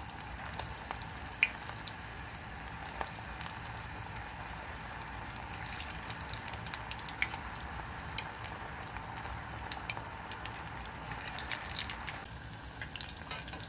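Batter-coated cauliflower pieces deep-frying in hot oil: a steady sizzle dotted with small pops and crackles, a little louder about six seconds in.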